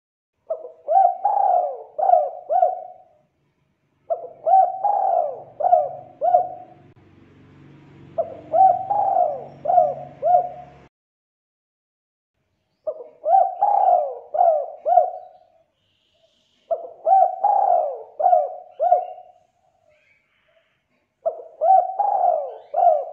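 Spotted dove cooing: six phrases of about four notes each, one phrase roughly every four seconds.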